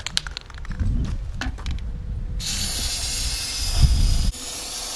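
Aerosol spray-paint can rattling with short clicks at first. From about two and a half seconds in it gives a steady hiss as paint is sprayed onto the water in a bucket.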